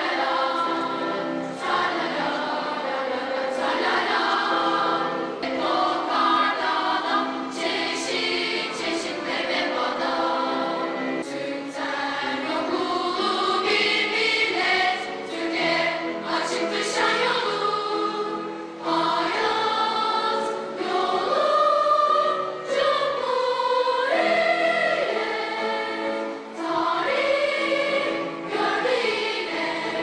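A large choir of children and teenagers singing.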